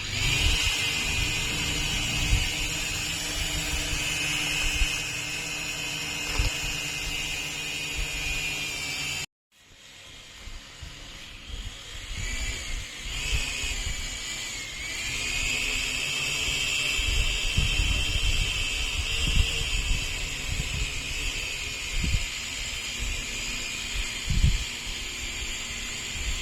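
Small DC motor of a homemade table fan running with a steady high-pitched whine. The sound cuts out abruptly about nine seconds in, comes back, and its pitch dips and wavers briefly a few seconds later before settling again.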